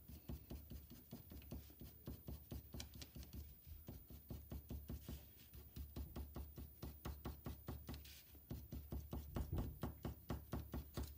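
Colored pencil scratching quick, short strokes onto construction paper laid on a table, several strokes a second, drawing hairy texture lines.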